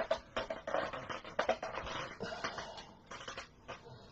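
Irregular clicks and taps of small hard objects being handled on a work table, with some rustling in between.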